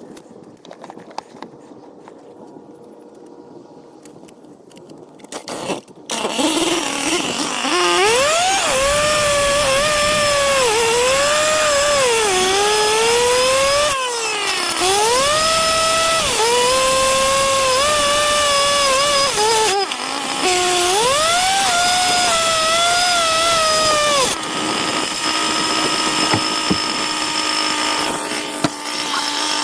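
A power cutting tool, likely a saw on the concrete driveway, starts about six seconds in and runs loud. Its whine sags and recovers again and again as it bites into the work, then runs steadier near the end.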